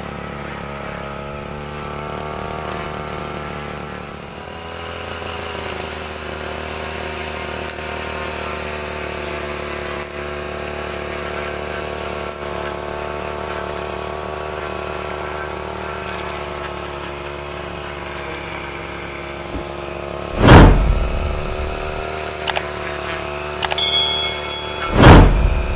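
STIHL FR3001 brush cutter engine running steadily at a low, even speed. Near the end, two loud sudden thumps come about four and a half seconds apart. A brief metallic ring sounds just before the second thump.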